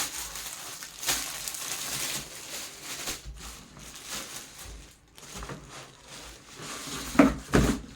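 Plastic packaging rustling and crinkling as high chair parts are unwrapped and handled, with two loud knocks near the end.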